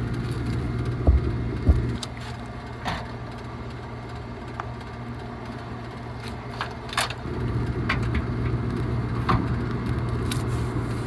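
Scattered knocks and clicks of hands and tools working on an HVAC package unit's blower motor assembly, over a steady low hum. The hum drops about two seconds in and comes back about seven seconds in.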